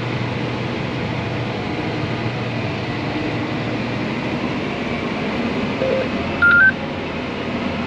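Steady drone of a John Deere 8R 370 tractor running in the field, heard from inside its cab as it pulls a grain cart. About six seconds in comes a short two-note electronic beep, the loudest sound here.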